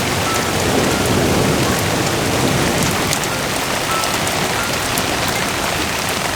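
Loud, steady rushing of water, a dense even hiss like heavy rain.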